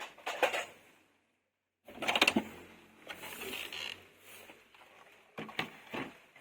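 Plastic toys and packaging being handled: clicks, knocks and rustles in a few short bursts.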